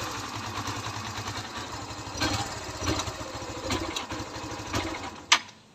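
Kawasaki Barako II's single-cylinder four-stroke engine idling unevenly and stumbling after its choke is released while still cold, fading and then dying near the end, with a sharp click just before it stops: the engine stalls because it has not yet reached normal operating temperature.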